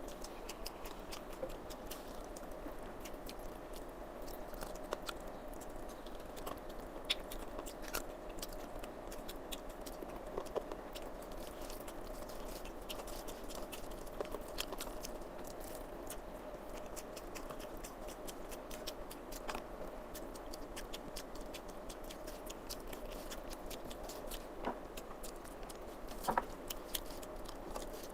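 Chewing and wet mouth sounds of someone eating rice and chicken curry: many small irregular clicks and smacks, with a faint steady hum underneath.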